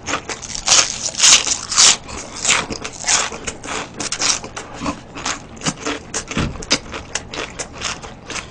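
A person chewing and lip-smacking close to the microphone, a quick, irregular run of wet mouth smacks and clicks.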